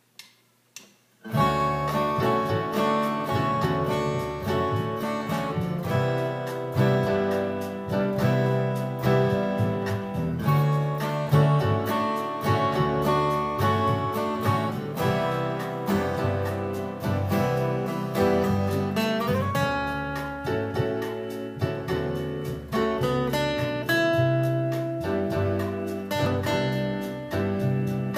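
Solo acoustic guitar playing an instrumental song intro, notes and chords plucked in a steady rhythm, starting about a second in after a couple of faint clicks.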